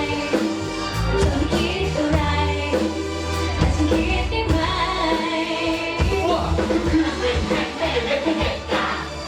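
Live Thai pop song played loud over a PA system, with a steady drum beat, bass and a singing voice.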